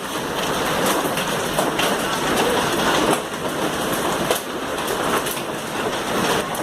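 Hail pelting down: a dense rush of falling stones with frequent sharp, separate clicks of hailstones striking hard surfaces.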